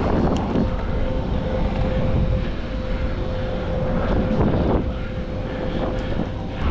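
Wind rushing over the microphone of a camera carried along on a bike ride, a steady low rumble. A faint steady hum holds one pitch through most of it and stops shortly before the end.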